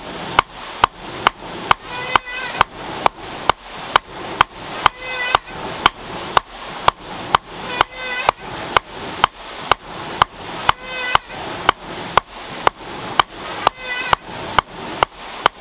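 Hammer blows on a red-hot iron rod laid on a stone anvil, drawing it out into a nail, at a steady pace of about two blows a second. A creaky squeal with a ringing overtone comes back about every three seconds.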